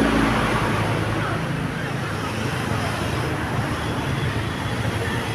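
Roadside traffic noise: a vehicle engine rumbling steadily among passing traffic. A steady horn note fades out just as it begins.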